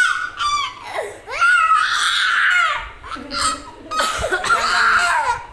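A small child's high-pitched squealing outbursts: a few short choppy bursts, then two long loud squeals with a wavering pitch that stop abruptly near the end.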